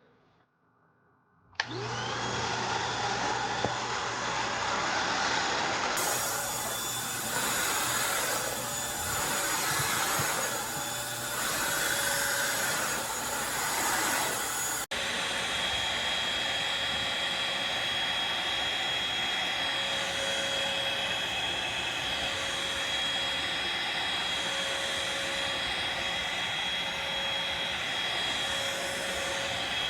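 Eureka corded stick vacuum running steadily: a motor and airflow rush with a thin high whine over it. It starts about a second and a half in, and about halfway through there is a sudden cut to another stretch of the same steady running.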